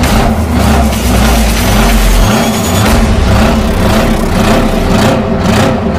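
Heavy engine revving up and down again and again, with a deep rumble in the first couple of seconds.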